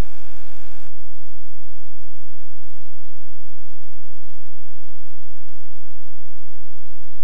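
A loud, steady hum like electrical mains hum, made up of many held tones with a heavy low drone beneath.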